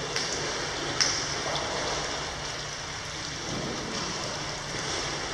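Steady, rain-like rush of water in an indoor pool hall, with a single sharp click about a second in.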